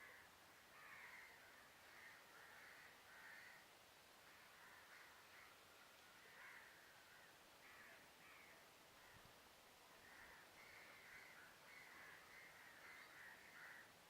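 Faint birds calling, short calls repeated in runs, busiest near the start and near the end.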